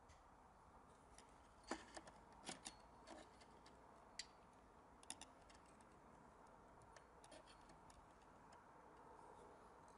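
Faint, irregular metallic clicks and taps as a screwdriver and hand tools pick the remains of old rivets out of an aluminium window frame. The clicks come in a cluster in the first half, with a few softer ones later.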